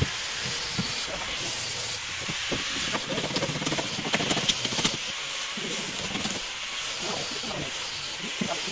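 A steady hiss, with faint voices and a few light clicks and knocks of wooden bed-frame posts and rails being handled and fitted. The knocks are busiest about three to five seconds in.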